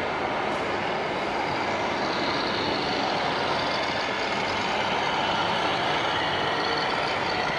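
Steady truck engine noise from the electronic sound modules of 1/14-scale RC trucks, played through their small onboard speakers as the models drive around.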